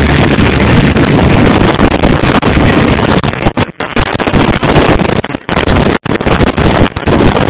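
Wind buffeting the microphone and spray rushing off the hull of a fishing boat running flat out through choppy sea, with the engine blended into the roar. The sound is loud and steady, with a few instant dropouts after about three and a half seconds.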